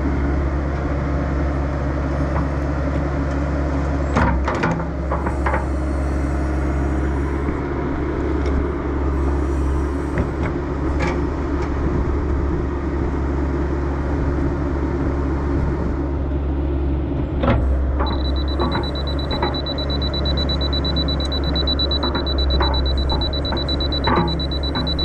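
Excavator engine running steadily while its bucket scrapes and knocks through dirt, with a few sharp clanks. About three-quarters of the way in, a laser level receiver on a grade rod starts a steady high-pitched beep that keeps going.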